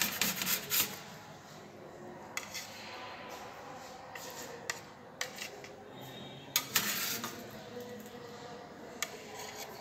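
Slotted metal spatula clinking and scraping on a ceramic plate as potato portions are set down: a handful of short knocks and scrapes, loudest right at the start and about seven seconds in.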